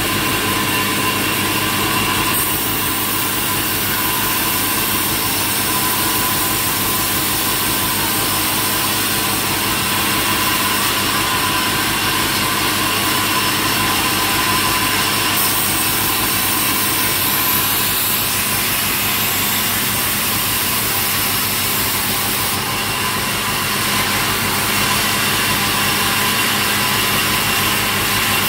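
Sawmill saw machine running steadily: a continuous mechanical drone with several steady high-pitched tones.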